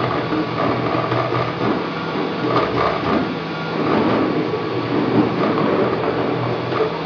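Wanhao Duplicator 3 desktop 3D printer printing: its stepper motors whir in shifting pitches as the print head moves, over a steady low hum.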